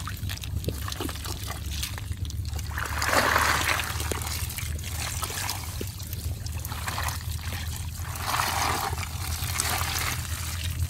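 Water trickling and pouring from a collapsible ring net trap as it is lifted and shaken out, emptying its catch of small fish and snails. The pour swells twice, a few seconds in and again later. Scattered small clicks come from the mesh and the catch.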